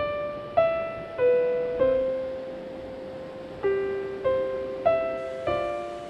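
Background piano music: slow, gentle single notes, each struck and left to fade, in short phrases of a few notes with a pause in the middle.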